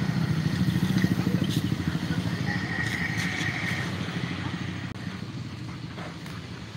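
An engine running, loudest over the first couple of seconds and slowly fading.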